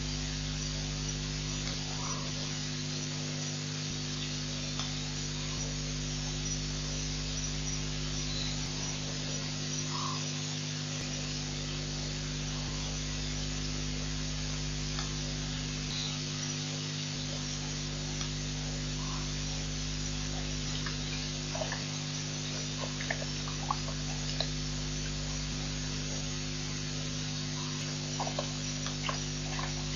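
Steady electrical mains hum with hiss from a live-stream wildlife camera's audio. Faint short calls come through every few seconds, with a few small clicks near the end.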